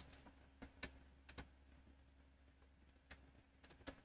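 Faint, irregular clicks of computer keyboard keys being pressed, a few scattered keystrokes with short pauses between them.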